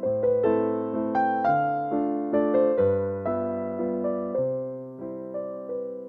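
Background piano music: a slow, gentle piece of notes struck and left to ring out over a changing bass line.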